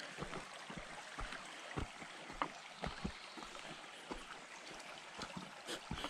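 Hiking footsteps on a dirt trail, about two steps a second, over the steady trickle of a shallow rocky creek.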